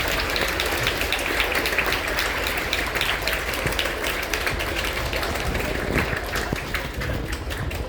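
Audience of students applauding, many hands clapping at once in a dense, steady patter.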